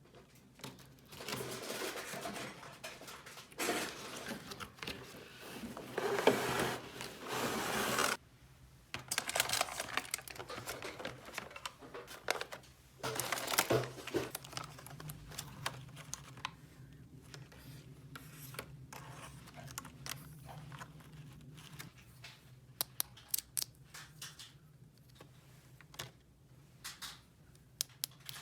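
Hands unpacking toy packaging: plastic and paper rustling, tearing and scraping in bursts, then a quick run of light clicks near the end.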